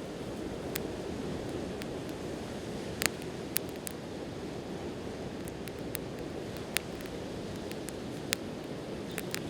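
Campfire crackling, with sharp pops of burning wood at irregular intervals, the loudest about three seconds in, over a steady wash of sea surf.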